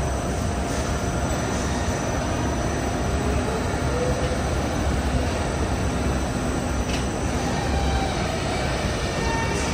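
Machinery of a rockwool sandwich panel production line running: a steady mechanical rumble with a few faint steady tones and an occasional faint tick.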